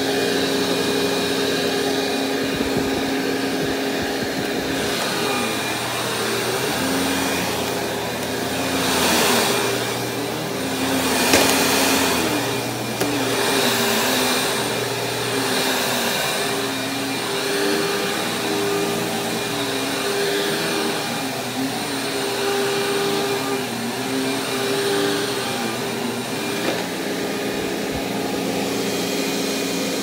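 Sharp Twin Energy upright vacuum cleaner running on carpet: a steady motor hum and airflow rush whose pitch wavers up and down repeatedly as the load changes with the nozzle being pushed back and forth.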